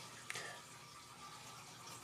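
Quiet room tone: a faint steady hiss with a thin high hum, broken by a single short click about a third of a second in.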